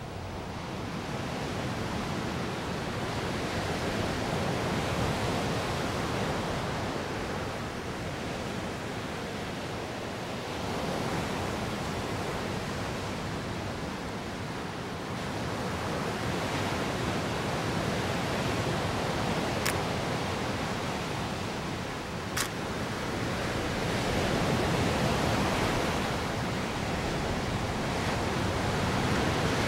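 Ocean surf: waves breaking and washing up the sand in a steady rush that swells and fades every several seconds. Two brief faint clicks a couple of seconds apart past the middle.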